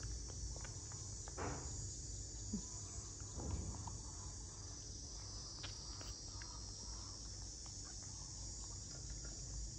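A steady, high-pitched insect chorus, with a low hum underneath and a few faint clicks and short rustles.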